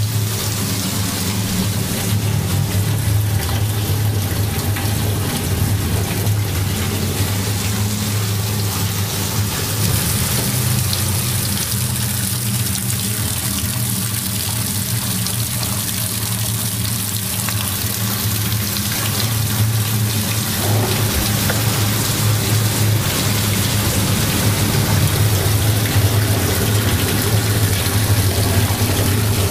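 Tap water running steadily into a stainless steel sink.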